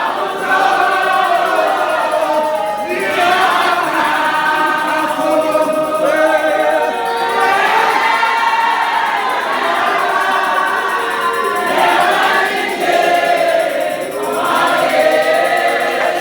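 A church congregation singing a gospel song together, unaccompanied by instruments.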